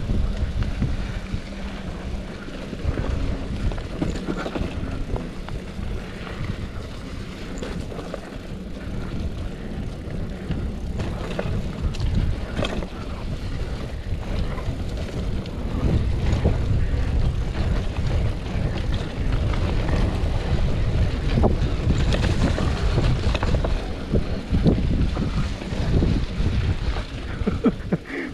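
Mountain bike being ridden along a trail: wind rumbling on the microphone over tyre noise, with scattered clicks and rattles from the bike.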